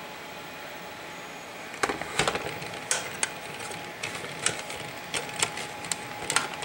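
Handling noise: a faint steady hiss, then from about two seconds in a run of irregular sharp clicks and knocks of hard objects being picked up and set down.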